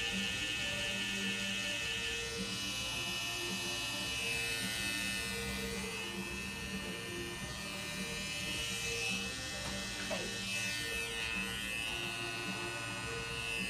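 Electric tattoo machine buzzing steadily as it runs.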